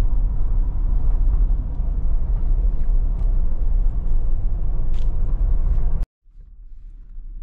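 Jeep Wrangler cabin while driving: a steady low rumble of engine and road noise. It cuts off abruptly about six seconds in and returns as a quieter low rumble.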